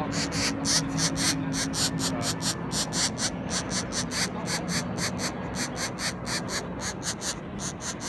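Rapid, rhythmic calling, about five short notes a second, over a low steady hum.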